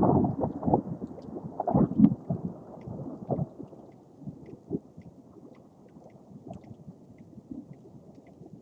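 Thunder of a thundersnow storm rumbling in several swells, loudest in the first two seconds, then dying away by about four seconds into a faint steady hiss.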